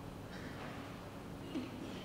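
Quiet church room tone with a faint steady hum, and a brief small knock or shuffle about one and a half seconds in.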